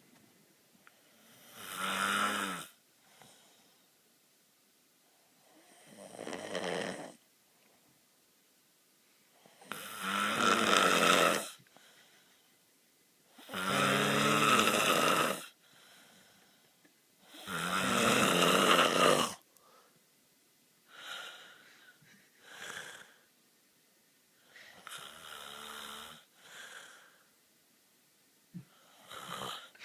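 A man snoring in his sleep: five long, harsh, loud snores about every four seconds, each lasting one to two seconds, followed by shorter, weaker snorts and breaths. The snores have an angry-sounding growl.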